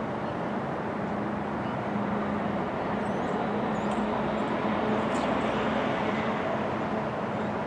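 Steady outdoor city noise of traffic or machinery, with a constant low hum running through it and a few faint high chirps.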